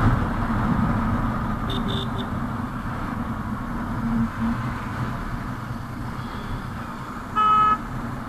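Ride noise from a Hero Super Splendor motorcycle in town traffic: steady wind and engine noise that eases off gradually. There are faint short beeps about two seconds in and a short horn honk near the end.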